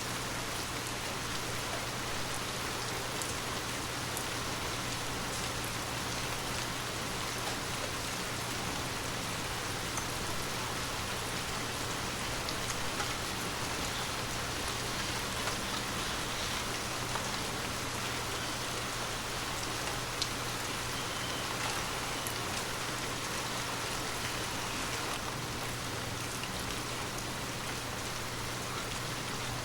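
Water drops pattering on glass: a dense, steady patter with scattered sharper individual drop ticks, over a faint steady low hum.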